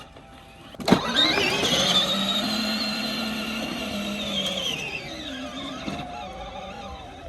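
Electric motor of a children's ride-on car spinning up with a click and a rising whine, holding for a few seconds, then winding down as the car fails to climb a slope.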